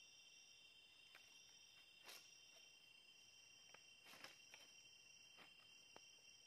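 Faint night insects chirring in steady, high, even tones, with a few sharp clicks and crackles scattered through, the strongest about two and four seconds in, from a campfire being tended with sticks.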